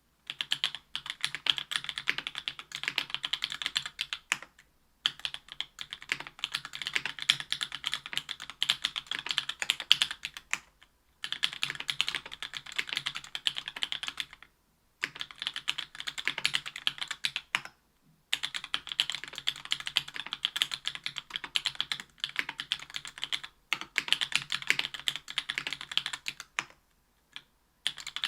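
Typing on a mechanical keyboard with stock JWK Black Clear Top linear switches (62 g), an aluminium plate, GMK keycaps and foam dampening: fast runs of keystroke clacks, broken several times by short pauses of about half a second.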